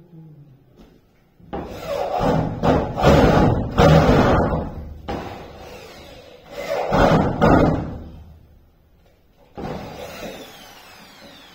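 Power drill biting into a wooden door panel in two loud bursts of a few seconds each, with a grinding, knocking edge over the motor hum. A quieter run near the end has a shifting whine.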